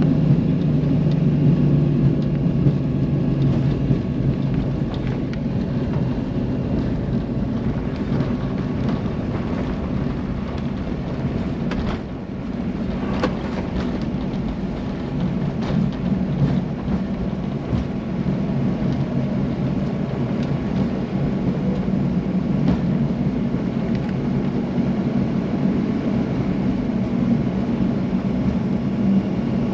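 Airliner cabin noise from a Boeing 737-800 rolling along the runway after touchdown: a steady low rumble of engines and wheels, a little louder at first and then easing, with a few faint rattles midway.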